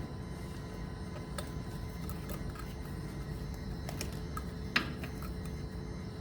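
Light scattered clicks and taps of metal parts and tools being handled, with one sharper click about three-quarters of the way through, over a steady low hum.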